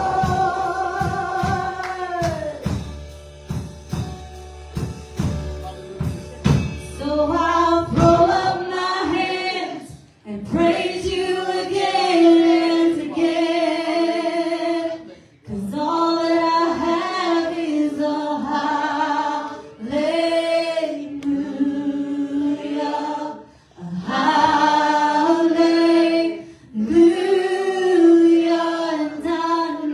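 Live gospel worship song: a woman's lead voice with others singing along over a drum kit. It opens on a held chord with several drum hits, then the singing comes in as phrases with short breaks between them.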